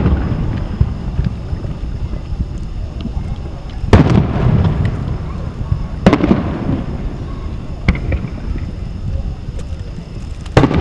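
Aerial fireworks shells bursting: sharp booms about four and six seconds in and again near the end, each trailing off in a lingering low rumble, over a steady low background noise.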